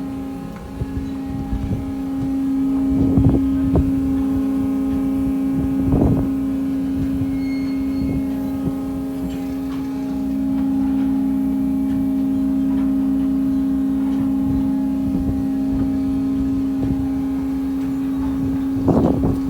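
Sawmill machinery running with a steady electric-motor hum, broken by a few sharp knocks about three and six seconds in and a cluster of knocks near the end.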